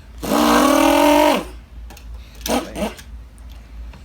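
A person voicing a revving engine for a toy car: one long pitched vroom of about a second that rises slightly and falls away, then a couple of short rev bursts.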